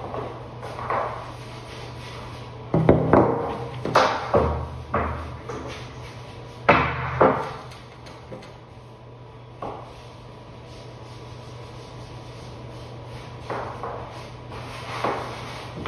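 Stiff scrub brush scrubbing a wet, soapy pebble-tile shower floor in irregular strokes, with a cluster of louder scrapes and knocks in the middle.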